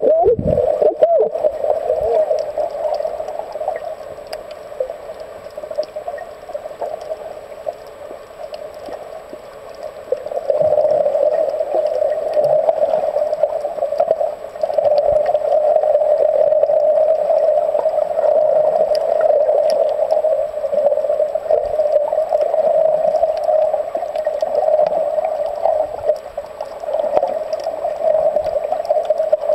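Muffled underwater noise picked up by a camera in a waterproof housing while snorkeling: a steady, rushing hum of moving water. It fades quieter for several seconds and then comes back.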